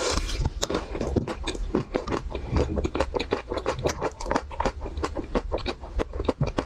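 Close-up chewing and crunching of a chocolate-coated Magnum ice cream bar, the hard chocolate shell cracking in many quick, sharp crackles several times a second.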